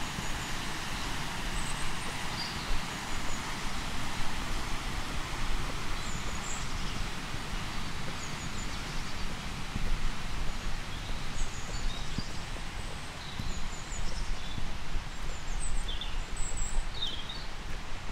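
Outdoor walking ambience: footsteps on a road surface over a steady outdoor hiss, with short high bird chirps scattered throughout and a few close together near the end.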